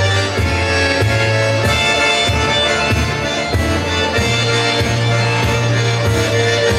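A folk ensemble playing an instrumental passage: sustained bass notes under held chords, with a regular beat.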